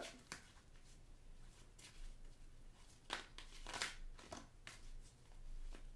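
A deck of tarot cards being shuffled by hand: a few soft, scattered card swishes and taps.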